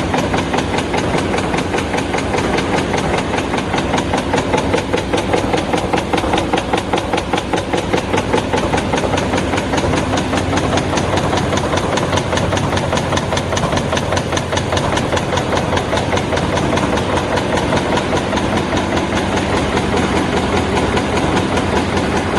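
High-speed paper cup punching machine running, a fast, even rhythm of mechanical strokes.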